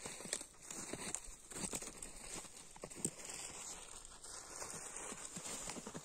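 Irregular soft knocks and crunches of people moving about on snow and tossing chunks of stale bread, with a little crinkling.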